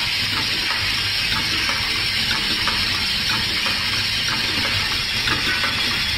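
Automatic EE-core transformer assembly and taping machine running: a steady hiss over a low hum, with light, irregular clicks and clacks from its pneumatic cylinders and moving parts.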